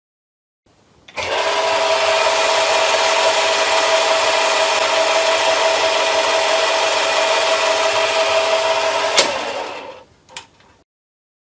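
Myford ML7 lathe running at its top spindle speed of 1175 rpm with the power feed engaged at a high feed rate: a steady gear whine and rattle, extra noisy at this speed and feed. It starts about a second in, then a sharp click about nine seconds in and the machine runs down.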